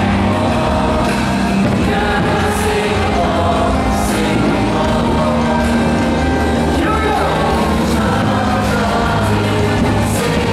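Loud music over a stadium's loudspeakers, with a large choir singing long held notes over a steady bass line.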